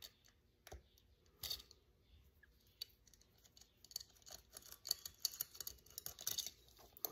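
Screwdriver blade scraping and clicking in the pilot-jet well of a 28 mm Mikuni carburetor as the pilot jet is unscrewed. Faint, irregular small clicks and scrapes, sparse at first and busier from about four seconds in.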